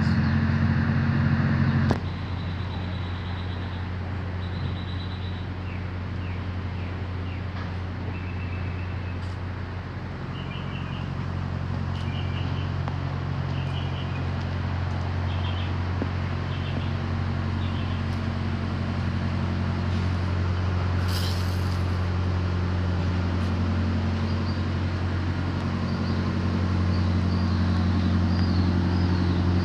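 Truck engine idling with a steady low hum that grows louder near the end, with a brief hiss about two-thirds of the way through. A bird chirps a short call over and over.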